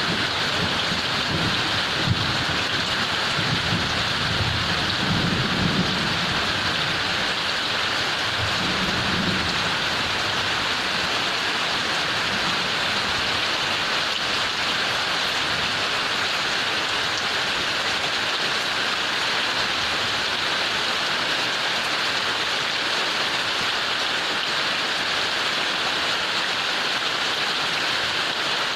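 Heavy rain pouring down steadily. A low rumble of thunder runs under it through the first several seconds and dies away.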